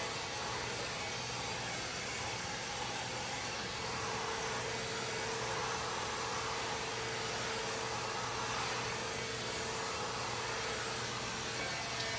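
Heat gun blowing steadily as it heats the vinyl shoe channel of the window frame to soften it and work out distortion. A faint steady whine joins about four seconds in.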